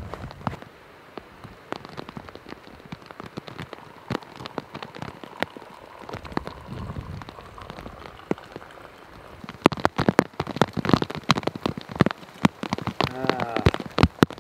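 Rain falling, with individual drops striking close by as sharp separate ticks. It grows heavier and louder about ten seconds in.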